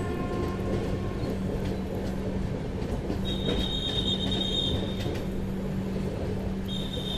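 Express passenger train running: a steady rumble of wheels on track with a constant low hum. A high-pitched wheel squeal starts about three seconds in, lasts under two seconds, and starts again near the end.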